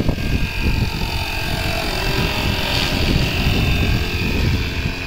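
FlyWing FW450 V3 electric RC helicopter in flight: a steady high whine from its motor and rotors, swelling about three seconds in, over a low uneven rumble.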